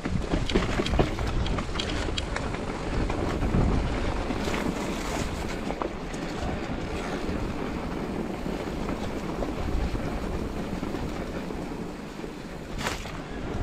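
Wind buffeting the microphone over the steady rolling noise of a mountain bike's tyres on a rocky, gravelly trail, with scattered clicks and rattles from stones and the bike.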